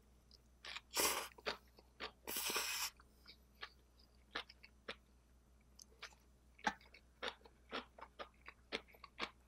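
Eating a mouthful of kimchi on spicy seafood fried rice. Two longer, louder noisy sounds come about one and two and a half seconds in, then a run of short chewing clicks.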